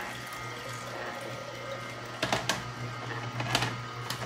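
Vertical slow juicer running with a steady low motor hum as its auger presses carrot, beet, ginger and sweet potato. A few sharp plastic clicks and knocks come in the second half, as the pusher goes into the feed chute.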